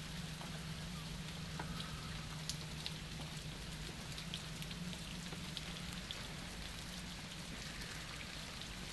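Freezing rain falling steadily, with many scattered small ticks and crackles of ice, over a faint steady low hum.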